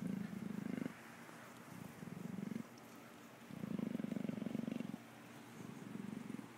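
Amur leopard purring in a steady rhythm, phrases of about a second that alternate louder and softer with its breaths out and in.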